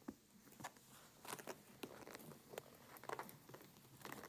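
Faint, scattered rustles and soft clicks of two kittens wrestling on a person's lap, claws and fur scuffing against the denim.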